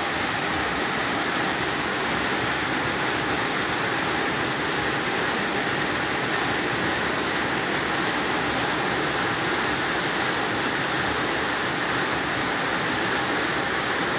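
Steady heavy rain, a constant downpour drumming on a corrugated metal carport roof and splashing on the wet ground.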